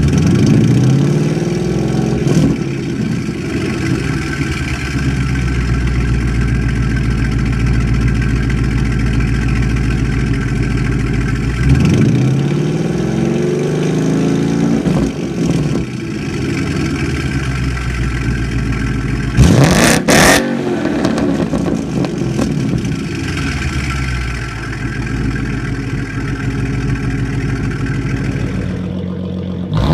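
V8 car engine running and being revved, its pitch climbing several times. A short, loud burst stands out about two-thirds of the way through.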